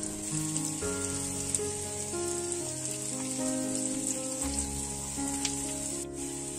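Oil sizzling steadily in a grill pan as seekh kebabs shallow-fry, under background music of slow, held notes.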